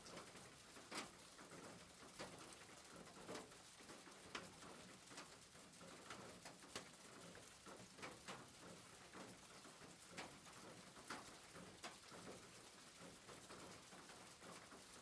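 Rain falling on a roof: a faint steady hiss with single heavier drops tapping at irregular intervals, roughly once a second.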